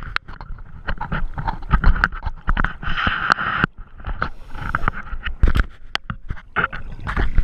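Underwater sound of a scuba diver exhaling through the regulator: several bursts of rushing, bubbling noise, mixed with many sharp clicks and knocks from the camera housing being handled.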